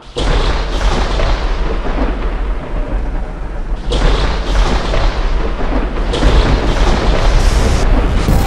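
Thunder-and-lightning sound effect: a loud, continuous rumble with a heavy low end that starts suddenly and grows brighter in surges about four seconds in and again around six seconds.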